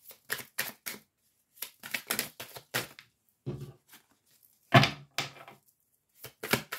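Oracle cards being shuffled and handled: an irregular run of short clicks and slaps, the loudest a little under five seconds in.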